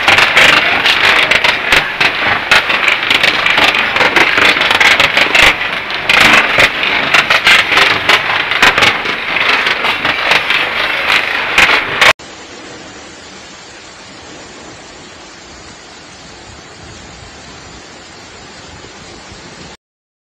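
Hail pelting down hard: a loud, dense clatter of hailstones striking surfaces. About twelve seconds in it cuts to a much quieter, steady rush of rain and running floodwater.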